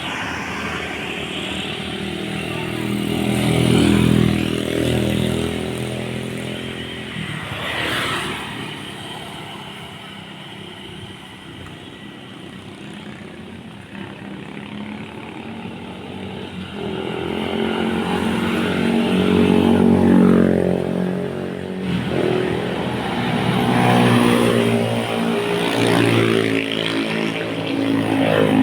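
Road traffic passing: the engines of several vehicles swell and fade as they go by. The loudest passes come about 4 and 8 seconds in and again over the last ten seconds.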